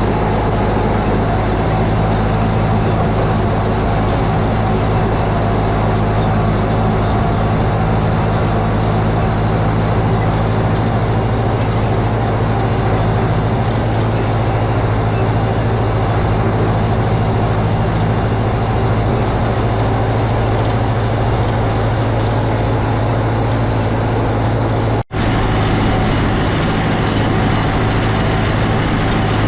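Farm tractor engine running steadily, a strong low hum. It cuts out for an instant about 25 seconds in, then continues the same.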